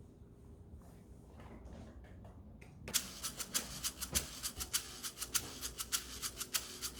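A brush scrubbing a hard surface in quick back-and-forth strokes, about six a second, starting about three seconds in.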